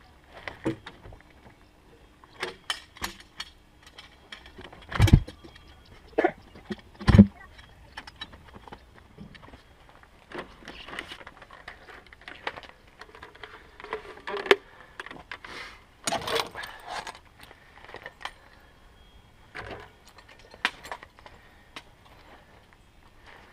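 Logs knocking and thudding as a log is levered over on a log pile, with two heavy thumps about five and seven seconds in. After that come scattered clicks and rattles of gear being handled close by.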